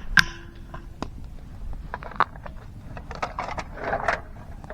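Scattered clicks and light scrapes from cooking bread in a pan over a campfire, with one sharp click just after the start.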